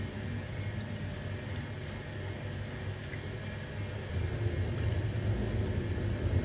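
Water poured in a thin stream from a plastic jug into a ceramic bowl, gradually filling it.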